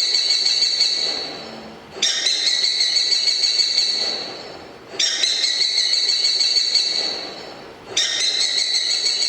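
Recorded bird call played by the NAO robot, repeating about every three seconds: each call is a high, steady, trilling note about two seconds long that fades out.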